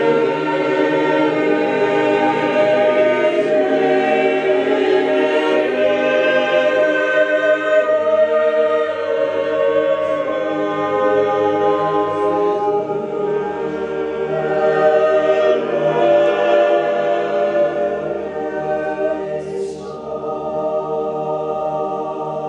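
Mixed choir of men's and women's voices singing a cappella, holding sustained chords that move slowly from one to the next.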